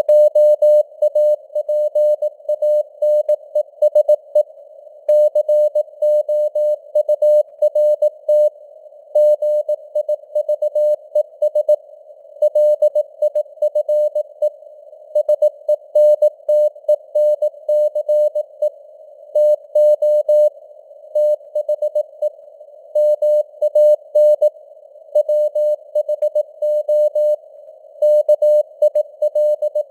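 Morse code (CW) sent at 18 words per minute: a single mid-pitched tone keyed on and off in dots and dashes, over a narrow band of simulated radio receiver hiss.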